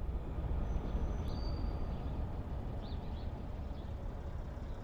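Steady low rumble of a vehicle driving slowly along a street, with a few faint high chirps about one and three seconds in.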